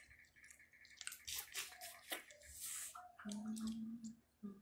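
Faint wet cracking, clicking and squishing of crab legs being broken open and picked at by hand and mouth while eating. A brief steady hum comes about three seconds in.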